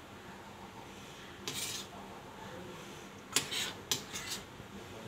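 A few short scrapes and clinks against a glass bowl as chopped strawberries are pushed into it: one about a second and a half in, then three in quick succession near the end.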